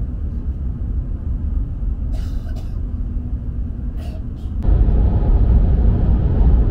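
Cabin running noise of a Tohoku Shinkansen train: a steady low rumble with a couple of short hissing clicks. About four and a half seconds in, the rumble suddenly gets louder and fuller as the train clears Shiroishi-Zao station onto open viaduct.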